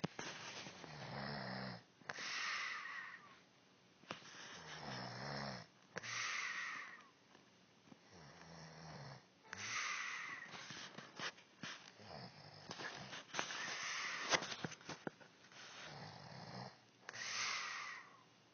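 A woman snoring in her sleep: a low, rattling snore followed by a breathy hiss, repeating about every four seconds. A few sharp clicks come midway.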